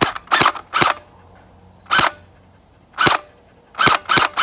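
Wells G36C gel ball blaster firing single shots on semi-automatic: about eight sharp shots at an uneven pace, three close together at the start, two spaced apart, then a quicker run near the end.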